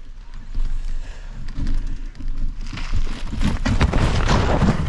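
A bicycle on a gravel trail: tyres crunching, the bike rattling and low wind rumble on a bike-mounted action camera. Louder scraping and knocking fills the second half.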